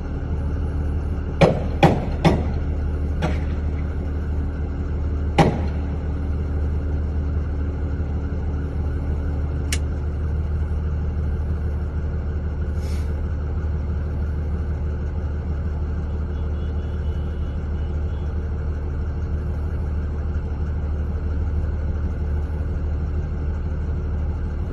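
Gunshots: three sharp bangs in quick succession about a second and a half in, a fainter one, then another about five seconds in, over the steady low rumble of a running vehicle engine.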